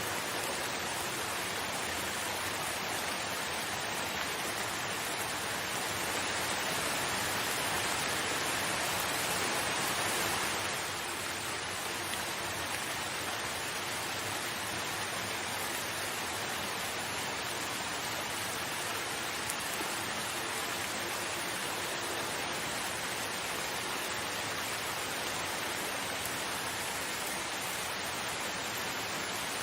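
Steady, even rainfall hiss that swells a little for a few seconds and drops back about a third of the way through.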